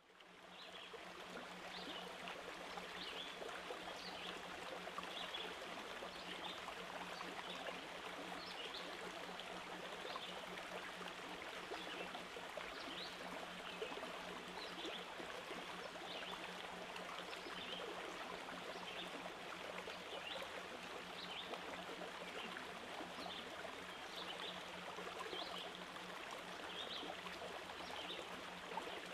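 Steady running-water sound like a flowing stream, with short high chirps about once a second and a faint steady low hum underneath.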